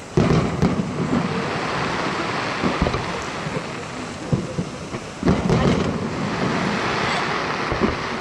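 Fireworks display: aerial shells bursting, with a heavy boom right at the start and another about five seconds in, each followed by a rumble lasting about a second. Sharper single bangs and a crackling hiss fill the time between.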